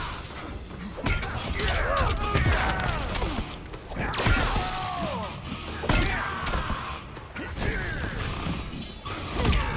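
Fighting video game audio during a match: repeated heavy hit impacts, with short fighter grunts and shouts over background game music.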